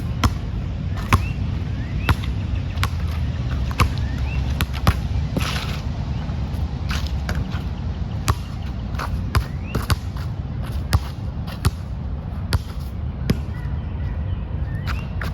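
A basketball bouncing and being shot on a wet outdoor court, giving sharp, irregular knocks one or two a second over a steady low rumble. A few short rising bird chirps are heard, and there is a brief rushing swell about five seconds in.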